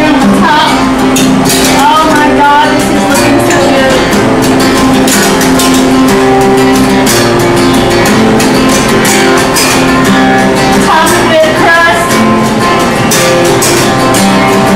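Acoustic guitar being strummed, playing a song with a steady strumming rhythm.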